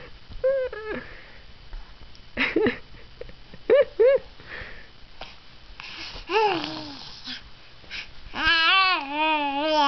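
Young baby cooing and babbling: a string of short, arched vocal sounds with gaps between them, two of the loudest close together about four seconds in, and a longer wavering coo near the end.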